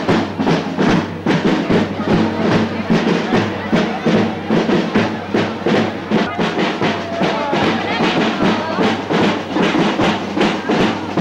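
Festive procession music with drums keeping a steady beat, and crowd voices underneath.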